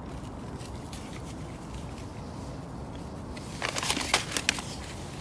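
Steady low rumble of strong wind, with a short cluster of clicks and rustles about three and a half seconds in.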